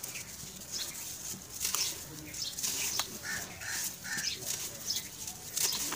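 Hands squeezing and crumbling a dry lump of grey sandy material over a tub of loose powder: gritty crunching and sifting, with a few sharp cracks as the lump breaks.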